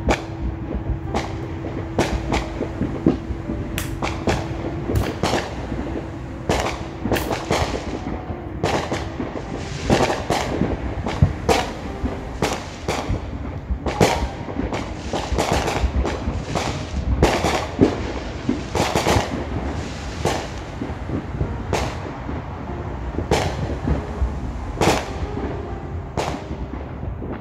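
Fireworks going off in the neighbourhood: a long run of sharp bangs and crackles, one every second or so and sometimes in quick clusters, over a continuous low rumble.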